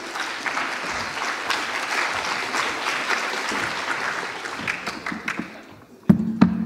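Audience applauding, dying away after about five seconds. Near the end comes a single loud knock as a laptop is set down on the lectern.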